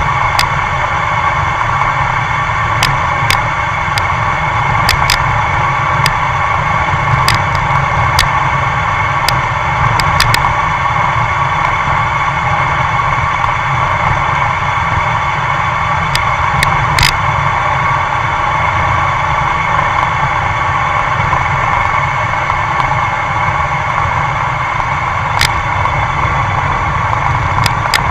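Steady rush of wind and road noise on a moving camera travelling over asphalt, with scattered sharp ticks.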